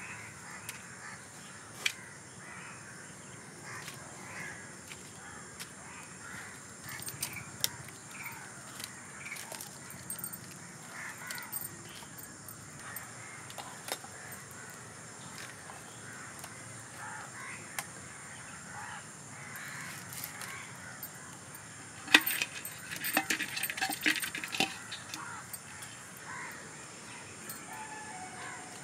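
A knife scraping and clicking against river crab shells as they are cleaned in a woven basket, with a quick run of sharp clicks and scrapes about 22 seconds in. Birds call in the background throughout.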